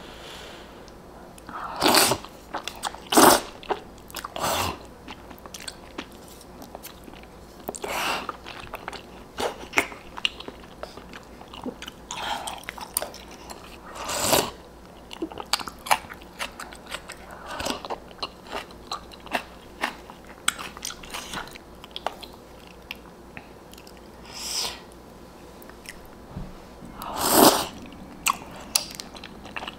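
Close-miked mukbang eating of spicy instant ramen noodles and broth: wet chewing with many small mouth clicks, broken by a handful of louder short slurps of noodles and broth off a spoon.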